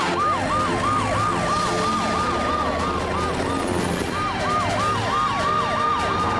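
Cartoon emergency-vehicle sirens: a fast yelping siren rising and falling about three times a second over a longer, near-steady wail. The yelp breaks off briefly about four seconds in, then starts again.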